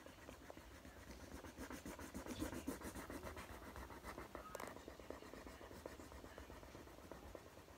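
A marker pen scratching faintly on paper in quick back-and-forth strokes as it colours in, with one sharper tick about halfway through.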